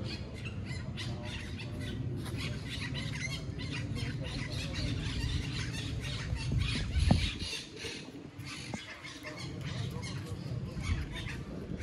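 A flock of parrots squawking and chattering nonstop in palm trees, over a low rumble. A single loud thump about seven seconds in, after which the rumble drops away.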